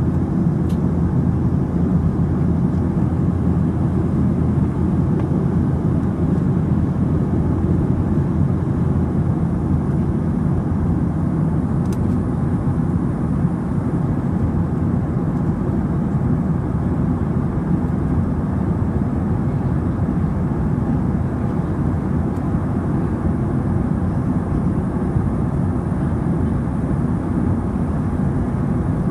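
Airplane cabin noise in flight: the steady, deep, unchanging roar of the engines and rushing air heard from inside the cabin, with a faint high whine that comes and goes.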